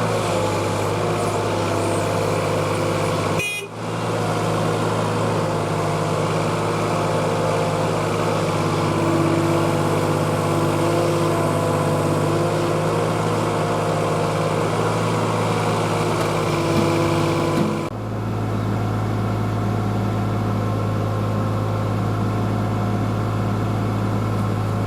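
Kobelco mini excavator's diesel engine running at steady revs, with higher hydraulic tones that come and go as the log grapple and its rotator are worked. The sound dips and changes abruptly twice, about three and a half seconds in and again near eighteen seconds.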